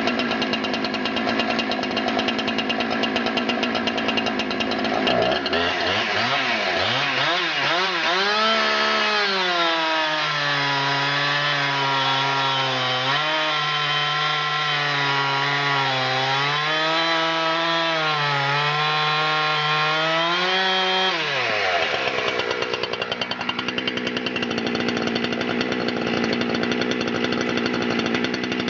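Husqvarna 372 XP X-Torq two-stroke chainsaw idling, then revved to full throttle about five seconds in. It is held at high speed for about fifteen seconds with its pitch dipping and recovering as it cuts into a Douglas fir log. Near the end it drops back to idle.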